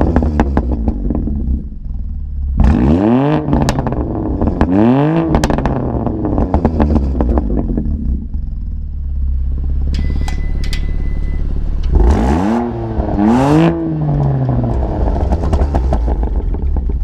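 BMW M2 Competition's twin-turbo inline-six running through a Remus racing axle-back exhaust with connecting pipes in place of the stock resonator, idling and blipped up in four quick revs in two pairs, each falling straight back, with crackles on the overrun.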